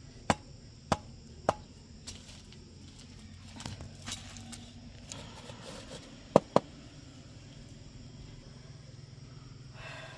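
A series of sharp knocks: three evenly spaced about half a second apart near the start, a few fainter ones after, and a louder pair in quick succession a little past the middle.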